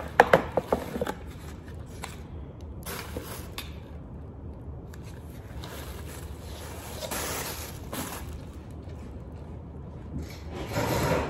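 Hard plastic and metal lunch-box parts clicking and knocking together in the first second as the tiers and lid are handled. Plastic wrapping then rustles and scrapes on and off, louder again near the end.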